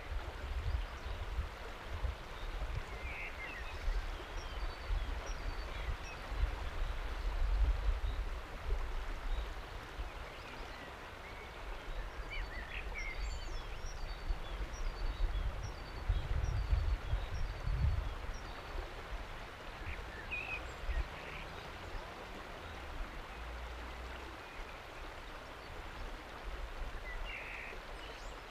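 A shallow river running over a flat rock shelf, a steady rush of water, with low rumbling wind buffets on the microphone. A few short bird chirps come and go above it.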